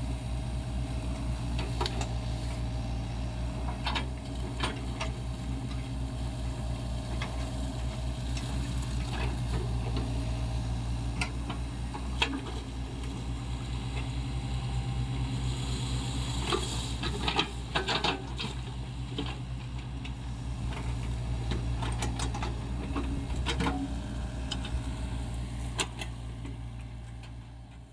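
SANY SY55C mini excavator's diesel engine running steadily as it works, with scattered clanks and knocks on top, a busier cluster of them past the middle. The sound fades out near the end.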